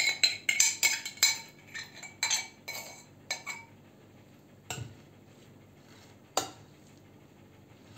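Spoon scraping and clinking against a ceramic bowl as thick yogurt is scraped out, in quick repeated strokes for the first three and a half seconds. Then two single knocks, one near the middle and one a little later.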